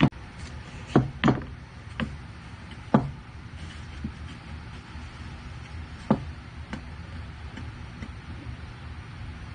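Wooden parts knocking on each other and on a wooden workbench as poplar frame layers and a wooden clamp disc on a threaded rod are handled and set in place: a handful of sharp knocks in the first three seconds, another about six seconds in, and a few lighter taps, over a steady low hum.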